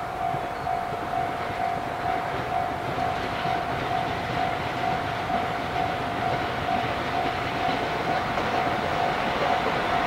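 Japanese level-crossing warning bell ringing steadily, about two electronic dings a second, while a JR East E531 series electric train approaches, its running noise on the rails growing louder toward the end.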